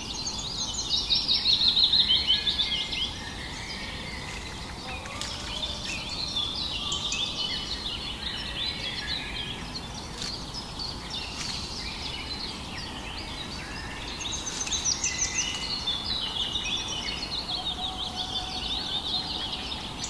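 Many small birds chirping and twittering together in a dense chorus, busiest in the first few seconds and again from about three quarters through.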